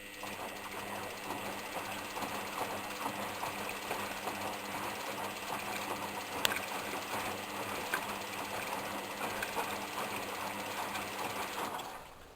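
Front-loading washing machine running, its transplanted Candy motor turning the drum: a steady mechanical hum with rapid rattling and clicking that starts suddenly and stops abruptly near the end, like one turn of the drum during a wash.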